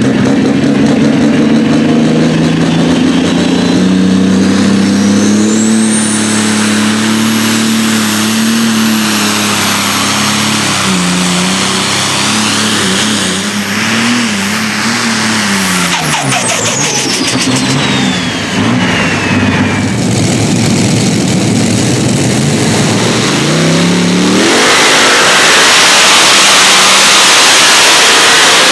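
Blue pulling tractor's turbocharged diesel engine at full throttle as it drags the weight sled, a high turbo whistle rising over the engine note, holding, then falling away as the pull ends. About four seconds from the end a multi-engine modified pulling tractor comes in at full throttle, louder and denser.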